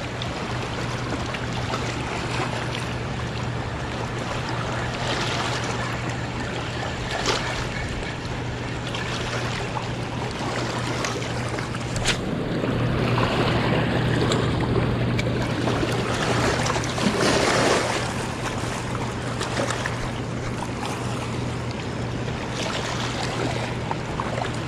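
Turbulent tailwater below a dam rushing and lapping over shoreline rocks, with wind on the microphone and a steady low hum underneath. A few short knocks break through, and the water grows louder for a few seconds past the middle.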